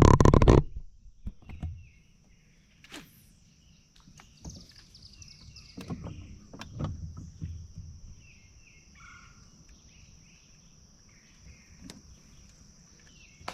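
Insects buzzing in a steady high drone, with faint short bird chirps over it. A loud rustling burst right at the start and a cluster of low knocks and thumps about six to seven seconds in.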